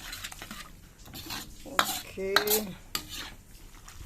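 A metal spatula scraping and clattering against a pan while stirring noodles, with a few sharp clanks about two seconds in.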